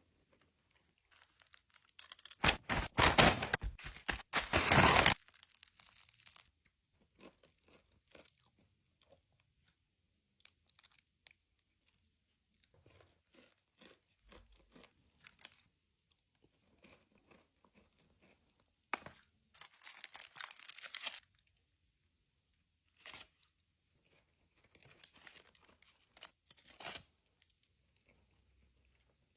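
Crisps being crunched and chewed close to the microphone, with packet crinkling, in irregular bursts separated by pauses; the loudest burst comes about two to five seconds in.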